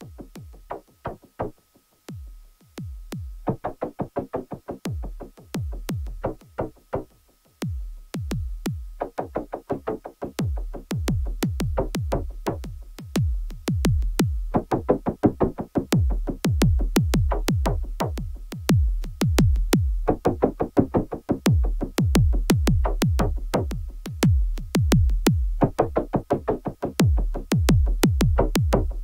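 Techno played on an Elektron Analog Four synthesizer: a drum-machine kick and hi-hat ticks under repeating bursts of plucked synth notes, with a thin steady high tone held underneath. It thins out briefly about two seconds in and again near eight seconds, then comes back fuller.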